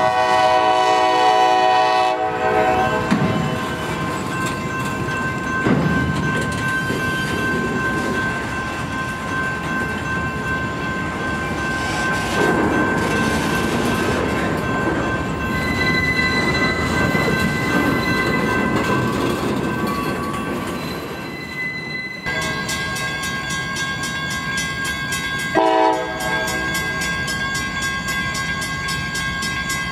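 Freight train horn sounding a chord that stops about two seconds in, then the rumbling clatter of loaded flatcars rolling past with a thin steady wheel squeal. Near the end comes a quick repeating ringing, and an approaching locomotive's horn blows again.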